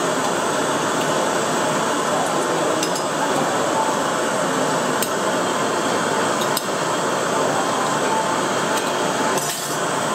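Metal utensils clinking a few times against steel pots and a ceramic bowl while congee is served, over the steady noise of a busy food-stall kitchen.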